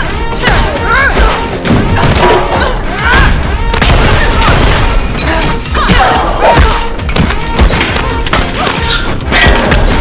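Action music score with a run of punch, thud and crash sound effects from a hand-to-hand fight, struck every second or so.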